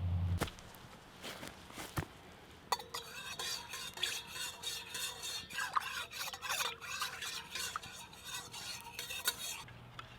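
Spoon stirring and scraping in a metal pot, with repeated metallic clinks, mixing cocoa powder into hot water. A low hum cuts off at the very start, followed by a couple of sharp clicks before the stirring begins.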